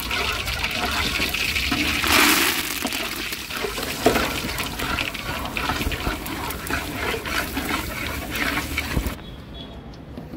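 Water gushing and splashing, loudest about two seconds in, with a sharp knock about four seconds in. The sound cuts off suddenly near the end.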